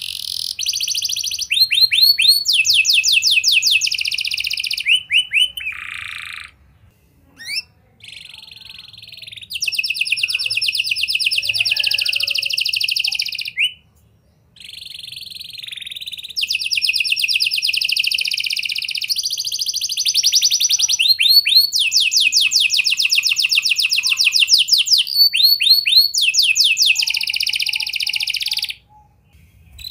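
Domestic canary singing long phrases of high, rapid trills and rolls of repeated notes, broken by short pauses about seven and fourteen seconds in.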